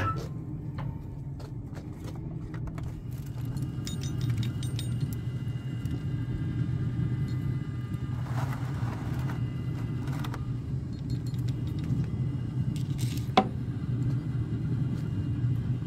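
Steady low rumble, with the pellet grill's steel lid clicking open at the start and a single sharp knock about thirteen seconds in.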